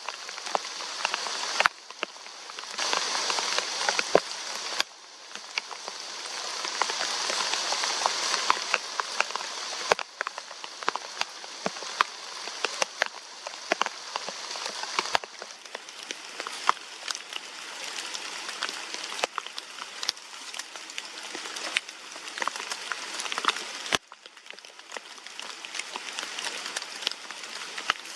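Rain falling steadily, a constant hiss with many sharp drips and ticks of drops landing close by. It shifts abruptly in loudness several times.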